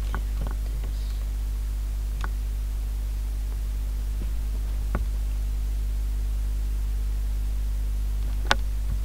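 Steady electrical mains hum with faint hiss, broken by a couple of faint clicks and one sharp click near the end, the loudest sound here.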